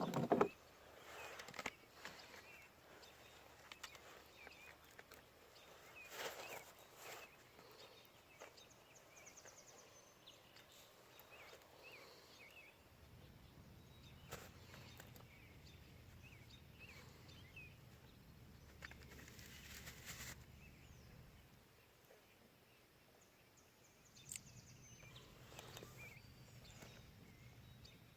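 Quiet lake ambience with faint, scattered bird chirps. A few brief soft noises and, in the second half, a faint low rumble.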